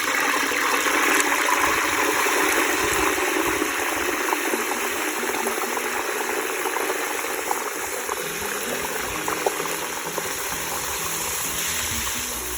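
Hot frying oil boiling up and sizzling hard around a whole turkey lowered into it, a dense bubbling hiss full of small crackling pops. It is loudest in the first few seconds and eases slightly toward the end.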